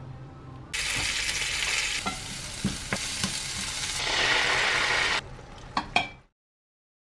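Food sizzling in a hot nonstick frying pan, starting about a second in, with a few short clicks. About four seconds in the hiss grows louder as sauce is poured into the hot pan. The sound cuts off suddenly shortly before the end.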